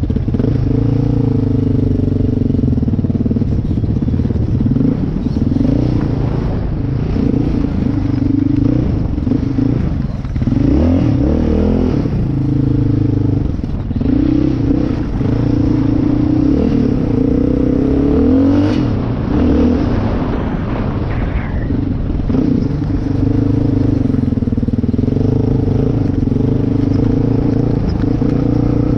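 Yamaha Raptor 660 ATV's single-cylinder four-stroke engine running under load, with the pitch rising and falling several times as the rider works the throttle and gears.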